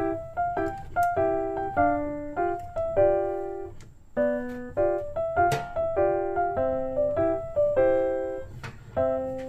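Background piano music: a melody of short, clearly struck notes, several to the second.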